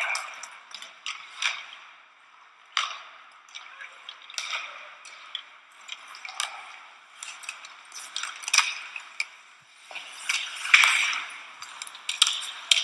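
Ice hockey play: skates scraping on the ice, with sticks and puck clacking in a run of sharp knocks.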